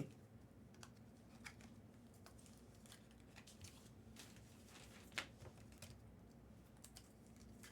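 Near silence broken by sparse faint clicks and light rustles of trading cards being handled, the sharpest click about five seconds in.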